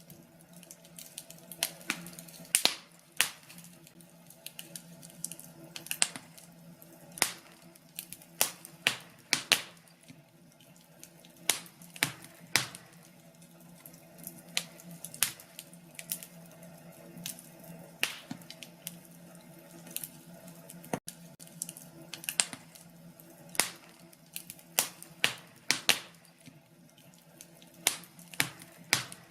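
Wood fire crackling, with irregular sharp pops and snaps coming a few per second at times, over a faint steady low hum.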